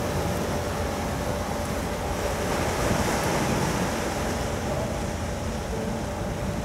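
Steady low rumble and hum of the car ferry Naminoue's engines and machinery as the ship closes in, with a constant mid-pitched tone running through it. Wind noise on the microphone is mixed in.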